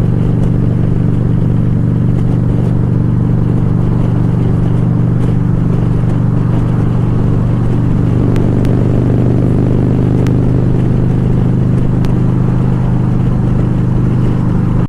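Harley-Davidson Ultra Classic Limited's V-twin engine running steadily at cruising speed, heard from the rider's helmet.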